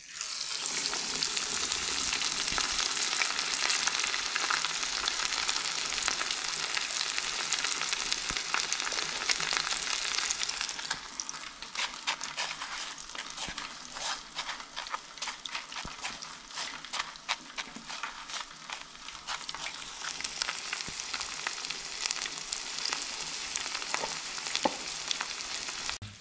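Breaded coral trout fillet frying in hot oil: a dense, steady sizzle that after about ten seconds eases into quieter sizzling with many small crackles and pops.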